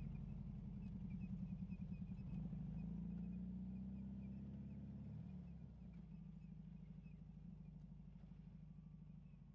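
Motorcycle engine running at low revs as the bike rolls slowly. Its note drops about five seconds in as it slows, and it grows fainter.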